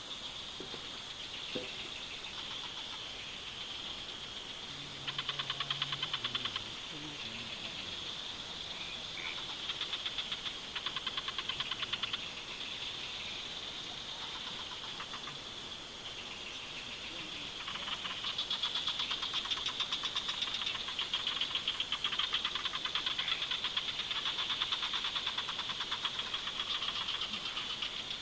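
Chorus of forest insects: a steady high-pitched drone with rapid pulsing trills that come and go, growing louder about two-thirds of the way through.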